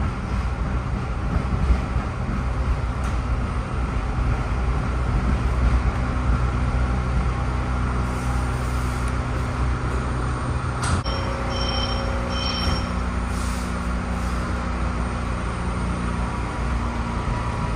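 PATCO Speedline rapid-transit train running through a tunnel, heard from inside the front car: a steady low rumble and hum of wheels on rail and traction motors. A little past the middle come a sharp click and a few brief high-pitched tones.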